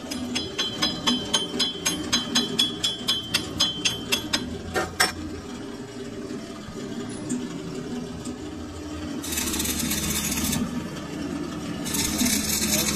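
A run of sharp metallic clicks, about three a second, ending in a single louder knock. Later come two bursts of electric arc welding crackle, the second about a second and a half long, as a steel pipe is tack-welded to a shaft held in a lathe chuck. A steady low hum runs underneath.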